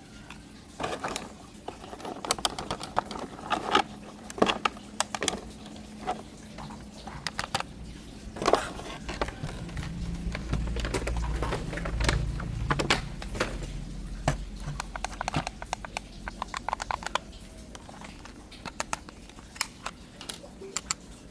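Irregular clicks, taps and rustles of small objects being handled, with a low hum swelling in the middle.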